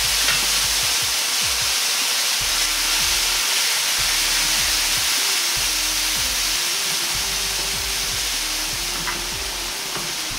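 Chicken stock boiling hard in a hot Chinese wok with stir-fried onions and shimeji mushrooms, a steady sizzling hiss that eases slightly toward the end.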